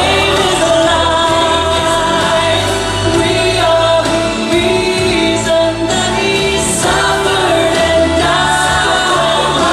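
Choir singing a Christian Christmas song with instrumental accompaniment, holding long notes.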